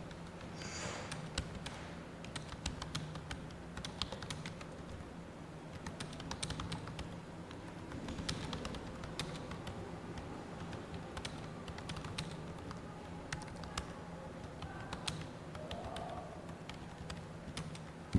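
Fast typing on a computer keyboard: a continuous stream of irregular key clicks over a low steady hum.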